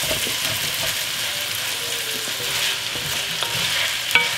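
Sliced bell peppers and onions sizzling in hot oil in an enamelled pan while being stirred, a steady frying hiss. A single sharp click near the end.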